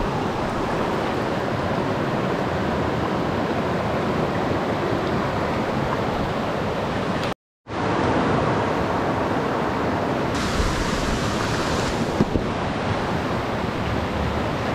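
Steady rush of a fast-flowing mountain river, broken by a brief dropout a little past halfway.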